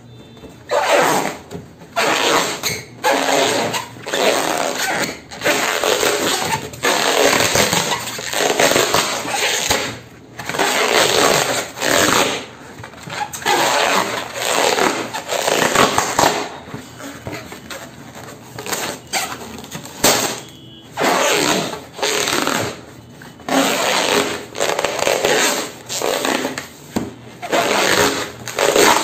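Hands rubbing and squeezing long inflated latex balloons: rough, squeaky rubbing of latex in strokes of about a second each, one after another with short pauses between them.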